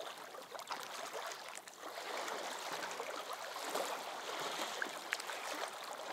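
Gentle water lapping and trickling, with many small clicks and crackles through it.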